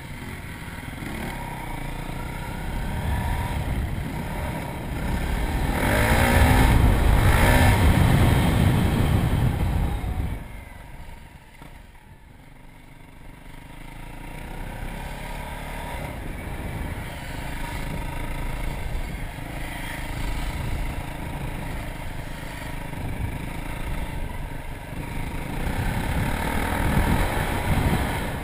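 Dirt bike engine, heard from the rider's helmet, pulling hard under throttle with pitch rising and falling; the loudest stretch runs from about six to ten seconds in, then the throttle drops off suddenly and the engine builds again towards the end.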